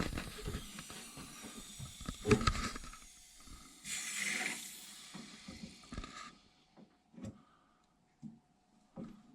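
Mains water being turned back on to a boiler: a few knocks of handling a valve, then a hiss of water rushing into the pipework under mains pressure, starting about four seconds in and lasting about two seconds.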